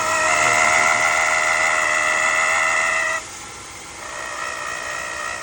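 Vehicle brake squealing: a loud, steady high-pitched squeal that cuts off suddenly about three seconds in, then comes back fainter a second later.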